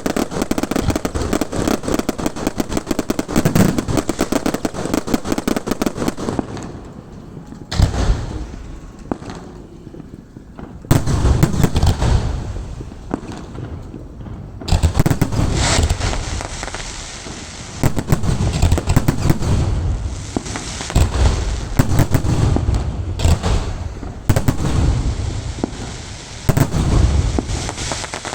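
Fireworks going off. First comes a dense, rapid crackling and popping, then after a short lull a run of deep booms from shells bursting, with crackle between them.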